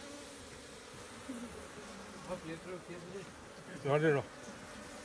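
Honey bees buzzing around a hive in a steady hum. A short, loud burst of a man's voice cuts in about four seconds in.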